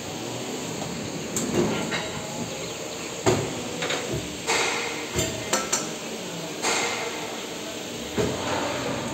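PVC injection molding machine at work: a steady machine hum broken by a series of sharp metal clanks and knocks from the machine and its sliding safety guard door, the loudest about a third of the way in.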